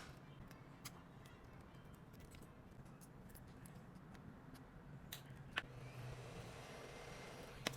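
Faint scattered clicks and taps of small hand tools on a phone under repair, with a few sharper clicks about five seconds in and near the end, over a low steady hum.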